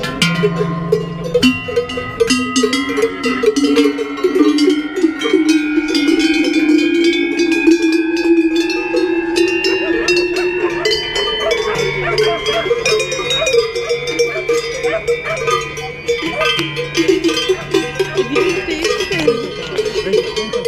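A row of large metal cowbells hung from a wooden beam by leather straps, rung by hand, clanging and ringing over one another without a break.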